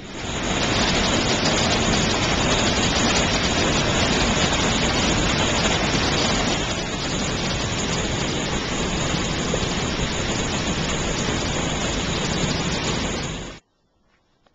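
Small mountain waterfall: water pouring over rocks into a pool, a steady, loud rush that stops abruptly near the end.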